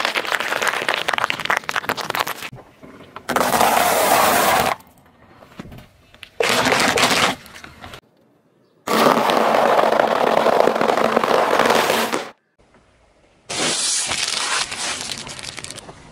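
Food being crushed under a slowly rolling car tyre: green grapes squashing and a heap of small brown balls cracking. Five separate bursts of crackling and crunching, each one to three seconds long, with short gaps between them.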